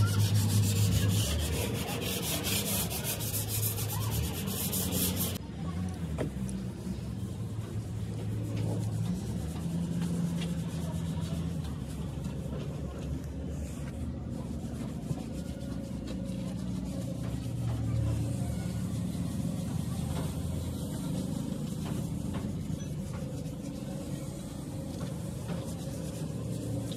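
Rasping, rubbing workshop noise of hand work on a bus body, over a low steady hum. A harsher, hissing noise in the first five seconds stops abruptly.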